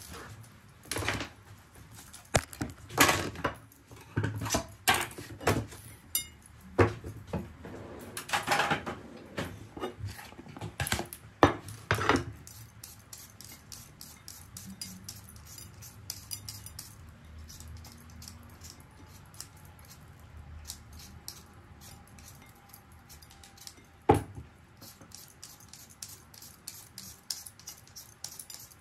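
Kitchen prep sounds: for about twelve seconds, a run of knocks and clatter as dishes and utensils are handled on the counter. Then come the quieter, quick scraping strokes of a Y-shaped vegetable peeler taking the skin off raw potatoes, with one sharp knock near the end.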